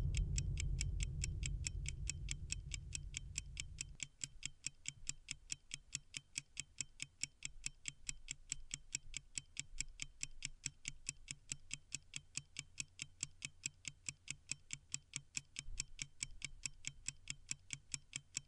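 Steady, rapid mechanical ticking, several sharp ticks a second, like a clock. A low rumble underneath fades out over the first few seconds.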